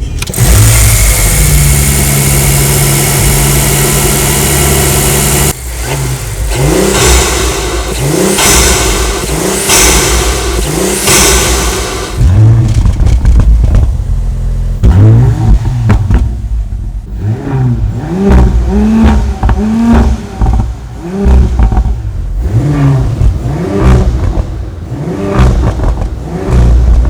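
Audi RS 5's engine and exhaust, held at a steady note for the first five seconds, then revved in a string of short blips, each rising and dropping back, about one a second.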